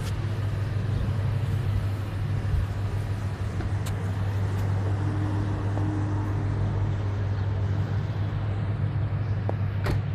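A steady low engine rumble with a couple of brief clicks.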